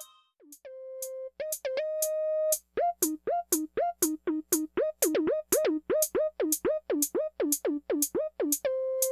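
Electronic background music: after a brief hush, a held synthesizer note, then a quick, even run of short synth notes, each dropping sharply in pitch, over a drum-machine beat.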